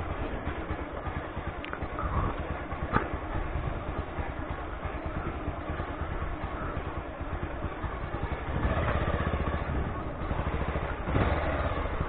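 Motorcycle engine running at low speed, getting louder in the last few seconds, with a single sharp click about three seconds in.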